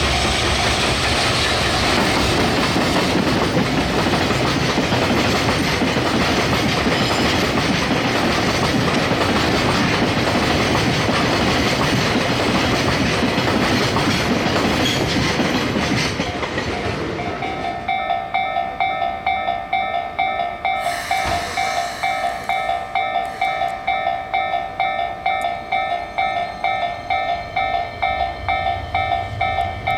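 A train rolls over a level crossing, its wheel and rail noise lasting about sixteen seconds before fading. Through it and after it, the crossing's electronic warning bell rings steadily at about two strokes a second, still sounding once the train has gone.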